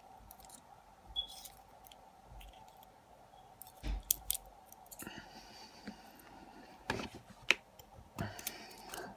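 Small metal clicks and taps of a disassembled lock's pins and parts being handled, scattered irregularly with several sharp clicks in the second half.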